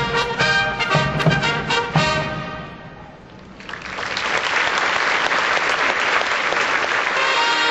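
Bugle corps playing valveless B-flat bugles; the music stops about two seconds in and its sound dies away in the hall. Audience applause then swells and carries on until the bugles start playing again near the end.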